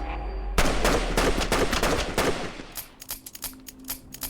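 Rapid gunfire: a dense burst of shots lasting about a second and a half, then scattered single shots that thin out.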